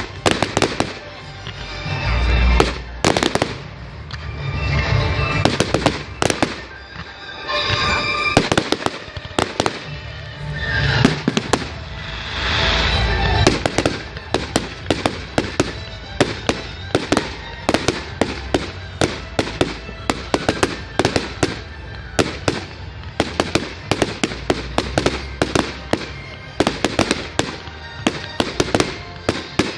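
Fireworks going off: several swelling bursts in the first half, then from about halfway a long run of sharp cracks, several a second.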